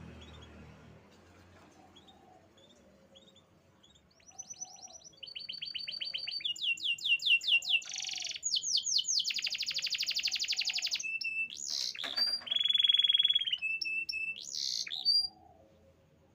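Canary singing: after a few faint chirps, a long, loud song of rapid trills and rolls, each phrase a fast run of one repeated note before switching to the next. It breaks off suddenly about a second before the end.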